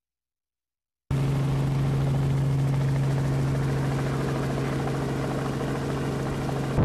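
Steady drone of a helicopter's engine and rotor, heard from on board. It starts abruptly about a second in, after silence, and cuts off suddenly near the end.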